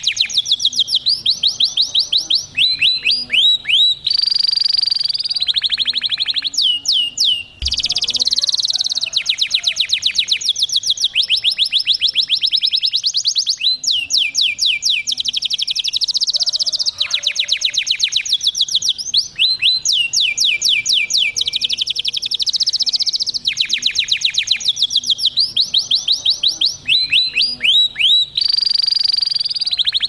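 Domestic canary singing a long, unbroken song of rapid trills and rolls, mixed with phrases of quick falling whistles, switching to a new phrase every second or two.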